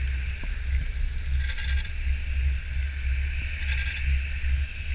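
Wind buffeting the camera microphone on a moving chairlift: a strong, uneven low rumble with a steady hiss over it.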